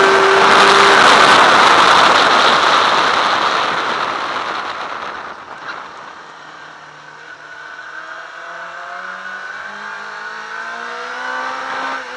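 Sport motorcycle at speed, heard from an onboard camera with heavy wind rush on the microphone. The sound falls away about five seconds in as the rider slows for a corner. From about seven seconds the engine note climbs steadily as the bike accelerates out, with a brief break near the end that fits a gear change.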